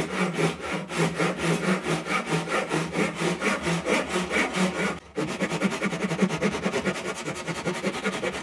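Japanese hand saw cutting Tasmanian oak hardwood in quick, even strokes, about five a second, with a brief break about five seconds in.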